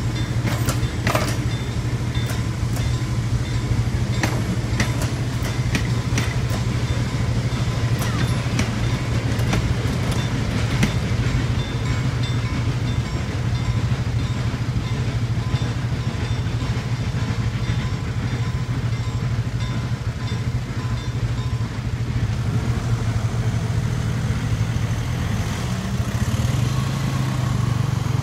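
Wooden carriages of a museum train rolling over a level crossing, their wheels clicking sharply over the rail joints during the first ten seconds or so, over a steady low hum. Near the end a car starts to pull away across the crossing.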